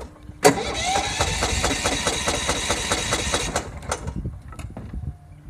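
Lawn mower engine turning over with a quick, even pulsing after a sharp click, for about three seconds, then dying away: the mower won't start.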